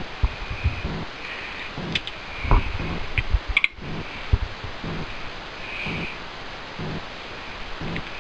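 Irregular light knocks and a few sharp clicks from hands, tools and the camera being handled over the engine bay, over a steady faint hiss.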